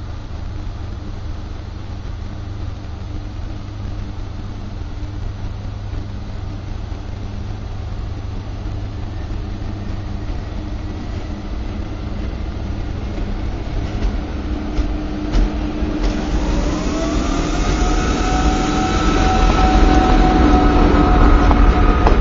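SNCF BB 7200 electric locomotive hauling a Talgo train as it pulls out past the platform: a low rumble that grows louder, then about two-thirds of the way in a whine that rises in pitch and settles into a steady tone as the locomotive and the first Talgo coaches go by.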